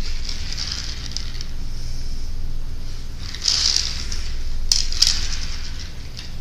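Hot Wheels die-cast toy car rolling on ceramic floor tiles, a gritty rolling hiss that swells and fades, with two sharp clicks near the end.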